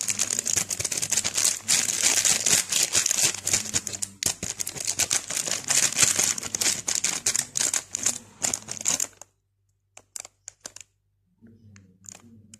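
A foil coffee-mix sachet crinkling as it is squeezed and shaken to pour out the powder, stopping about nine seconds in. A few soft ticks follow near the end.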